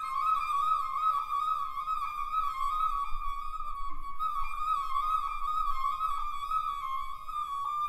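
Solo flute holding a high, wavering note, dropping briefly to a lower note about once a second in a repeating figure.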